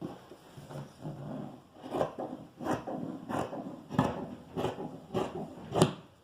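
Fabric shears cutting cloth, a sharp snip roughly every two-thirds of a second with rustling fabric between.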